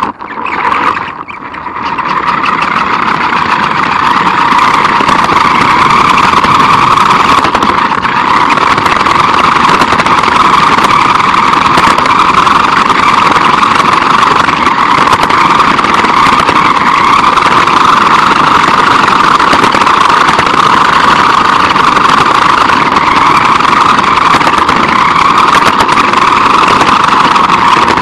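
RC car running along pavement, its motor, drivetrain and tyres heard close-up from a camera mounted on the car itself: a loud, steady whir. The sound drops sharply twice in the first two seconds, then holds even.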